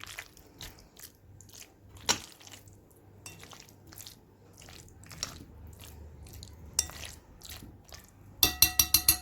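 Kitchenware clatter: scattered light taps and clinks of dishes and utensils, with a louder knock about two seconds in. Near the end comes a quick run of about seven sharp, ringing clinks.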